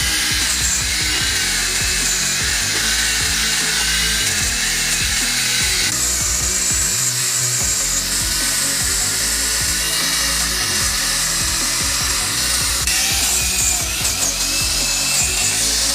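A power tool working steadily against a part, giving a continuous high hiss that shifts slightly a few times, with background music underneath.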